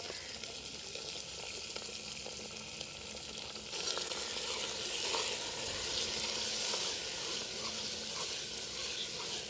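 Kadaknath chicken pieces sizzling as they fry in a large steel pot, in a little oil and the fat the meat itself releases, while a steel ladle stirs them. The sizzling grows louder about four seconds in.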